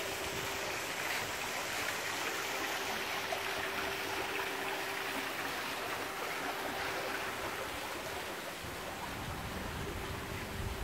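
Steady rush of running water from a garden water feature, with a faint steady hum beneath it.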